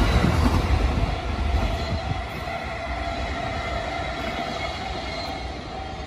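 JR Chuo-Sobu Line E231 series electric commuter train running past a level crossing, its rumble dying away over the first two seconds as the last cars clear. The crossing's warning bell rings on steadily underneath.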